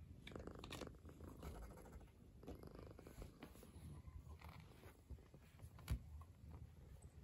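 Domestic cat purring softly and steadily, a contented purr, with one sharp tap about six seconds in.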